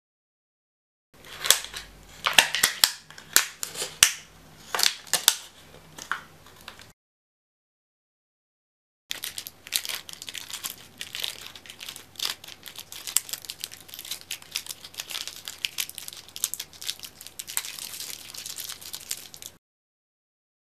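Rigid plastic bottle crackling and snapping in sharp, irregular cracks as it is handled and cut into a ring. After a pause of about two seconds, brown packing tape is pulled off its roll with a dense, steady crackle as it is wound around the plastic ring.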